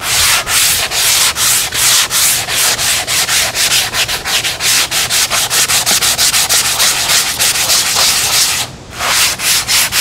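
An 80-grit sanding block is rubbed back and forth by hand over the spackle-coated foam of a model airplane wing, making a gritty hiss in quick strokes of about three to five a second. It pauses briefly about nine seconds in.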